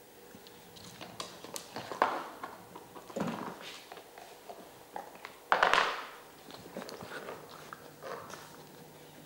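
Plastic parts of a Trixie Gambling Tower dog puzzle toy clicking and knocking against its wooden base as a dog noses at them. The knocks are irregular, and the loudest comes a little past halfway.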